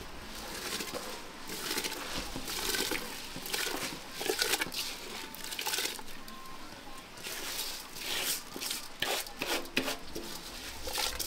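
Raw rice grains poured and swept by hand from a metal bowl into a large pot of steaming liquid: an uneven run of rushing, pattering pours and splashes, coming thicker near the end.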